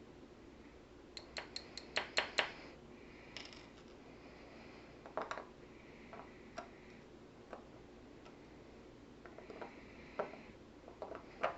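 Small, sharp metal clicks and taps of a lock cylinder's pins and parts being handled and set down: a quick run of about seven clicks a little over a second in, then scattered single clicks.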